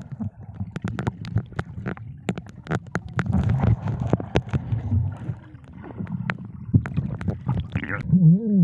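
Underwater sound on a diver's camera: a steady low rumble of moving water with many scattered sharp clicks and crackles. Near the end comes a loud, muffled, wavering voice-like hum.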